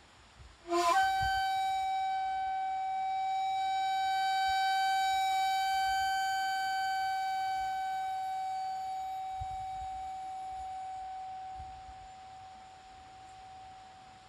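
Shakuhachi, the Japanese bamboo end-blown flute: a quick upward slide into one long, breathy held note that slowly fades out.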